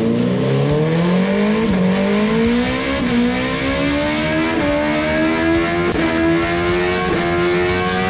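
2020 BMW S1000RR's inline-four engine running a break-in pull on a chassis dyno, revving up through the gears. The pitch climbs in each gear and dips briefly at about five upshifts, each climb slower as the gears get taller.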